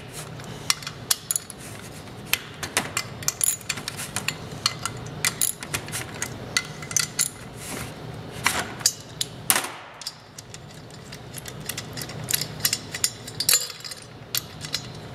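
Ratchet wrench clicking in short quick runs as the cylinder head bolts are undone on a small engine, with metal clinks of socket and bolts.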